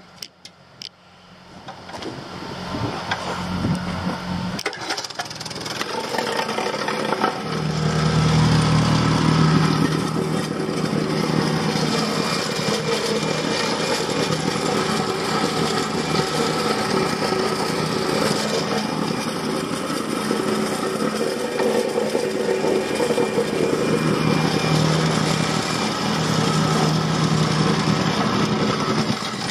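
A small engine running steadily under load, building up over the first several seconds, then cutting off abruptly at the end.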